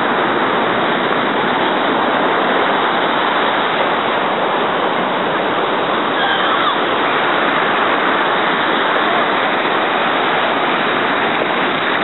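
Ocean surf breaking and washing up the beach: a steady, even rush of water.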